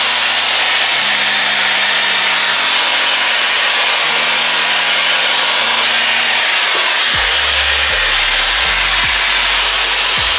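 Shark FlexStyle air styler running with its curling wand attachment: a steady, loud rush of blown air and motor hiss. Quiet background music with low bass notes plays underneath.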